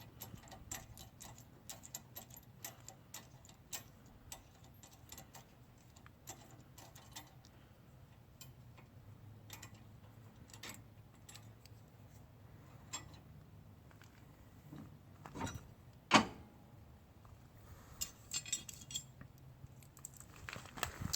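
Light metallic clicks and clinks as a threaded steel extension is unscrewed by hand from a lawn tractor's hydraulic lift bar, with one heavier metal clunk about three-quarters of the way through.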